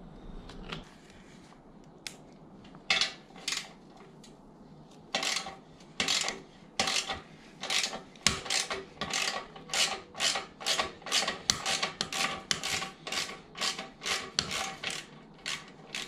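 A socket ratchet loosening the 12 mm exhaust clamp bolt on a Suzuki SV650. It is quiet for the first few seconds apart from a couple of clicks. From about five seconds in the pawl clicks in short strokes, about two a second, as the handle swings back and forth.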